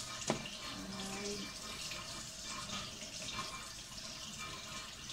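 Kitchen tap running into a stainless steel sink, a steady splashing hiss as hands rinse chili peppers under the stream, with one sharp click just after the start.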